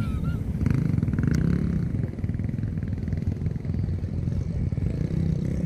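SUV engine running under load as it climbs a soft sand dune, a steady low drone with some brief rattling about half a second to a second and a half in.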